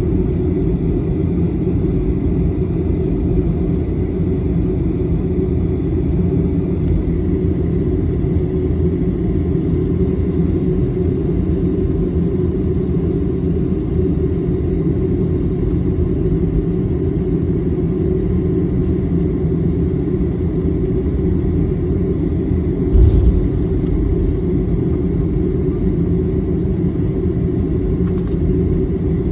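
Jet airliner taxiing, heard inside the cabin: a steady rumble of the engines at low taxi power and the rolling gear, with a single thump about three quarters of the way through.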